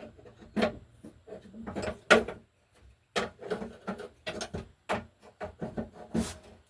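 Irregular knocks, clacks and rattles of hard objects being handled and set down, a dozen or more short hits spread unevenly with brief quiet gaps.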